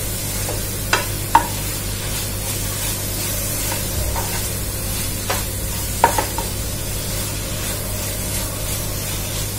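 Wooden spatula stirring and scraping grated coconut and jaggery around a nonstick pan as the sweet filling cooks, with a steady sizzle. A few sharp taps of the spatula against the pan come about a second in and again around six seconds.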